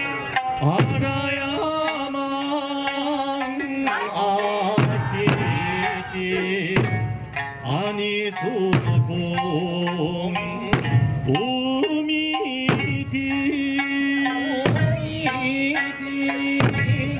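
Music with a regular drum beat and pitched melodic lines that slide in pitch.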